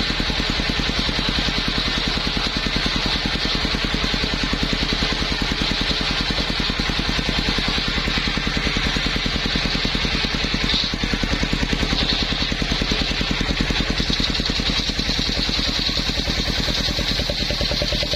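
Engine-driven circular sawmill running steadily, the engine's fast even pulse under a constant high whine.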